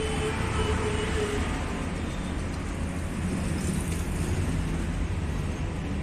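Steady low rumble of an engine running.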